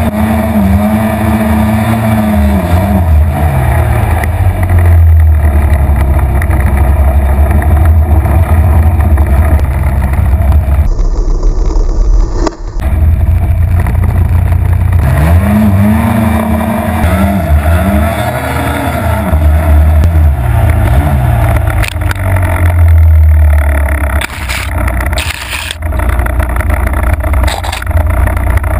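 Snowmobile engine revving up and down under load in deep powder, heard close from the sled itself, with its pitch repeatedly rising and falling.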